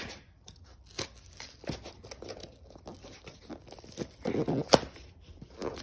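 A small cardboard toy box being torn open by hand: scattered tearing, crinkling and clicks, with a louder tearing burst about four seconds in that ends in a sharp snap.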